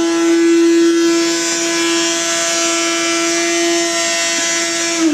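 Small vacuum cleaner running with a steady high whine as its hose picks up dirt and debris. It is switched off right at the end, and its whine begins to fall in pitch.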